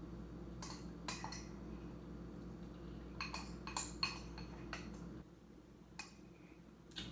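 Metal spoon clinking and scraping against a glass bowl while the last of the ice cream is scooped out. There are about nine short, scattered strokes.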